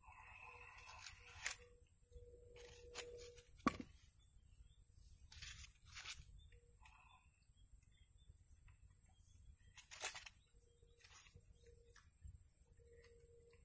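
Insects keeping up a steady, fast-pulsing high-pitched chorus, broken by a few sharp clicks, the loudest about a second and a half in, near four seconds and about ten seconds in.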